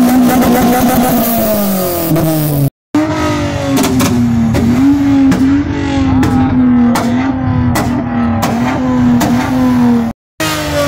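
Car engine revved hard and held at high revs, bouncing slightly as if against the rev limiter, with sharp exhaust pops and cracks. The sound cuts out abruptly twice for a moment.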